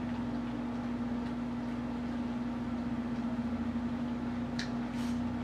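A steady electrical or mechanical hum with one constant low tone, and a faint click near the end.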